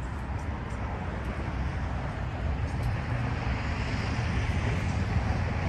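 Steady engine and road noise of a vehicle being driven at low speed, a low rumble that grows slightly louder toward the end.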